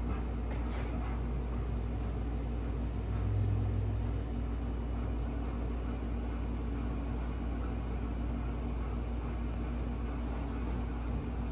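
Steady low hum of room noise, with a brief low rumble swelling about three seconds in.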